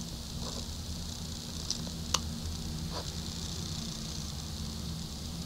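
Faint scratching of colouring on notebook paper, with a few soft clicks, over a steady low hum.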